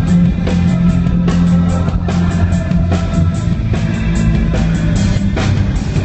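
Rock band playing amplified through a venue PA: electric guitar, heavy held bass notes and a drum kit keeping a steady beat.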